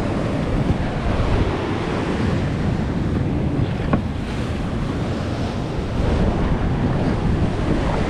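Ocean swell surging and breaking on the rocks close by, with steady wind buffeting the microphone.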